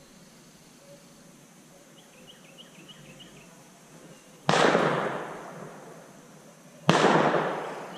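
Two shotgun blasts about two and a half seconds apart, each trailing off as it fades.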